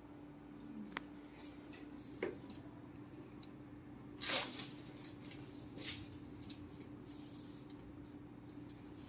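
Handling sounds of a chiropractic adjustment on a patient: a few sharp clicks and short rustling bursts, the loudest about four seconds in, over a steady low hum.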